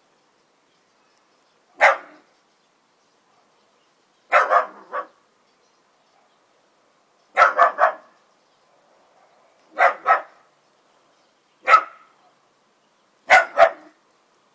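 Mini bull terrier barking at other dogs out of sight: six short volleys of one to three barks, spaced two to three seconds apart.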